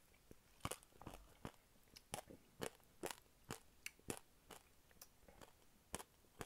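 Chewing on crunchy chia seeds from a sip of iced fruit tea: a run of small, sharp crunches, about two a second.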